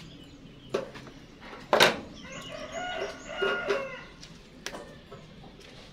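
A chicken calls for about two seconds in the middle. Just before it comes one sharp, loud knock, and a few fainter clicks fall around it.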